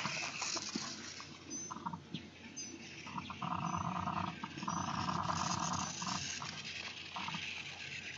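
Animal calls: a buzzy call that comes and goes in on-off pulses, loudest around the middle, over a low outdoor rumble.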